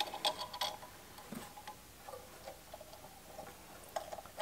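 Light clicks and faint scattered ticks of a small screw with a star washer being handled and threaded by hand into a radio's metal chassis, with a few sharper clicks in the first second.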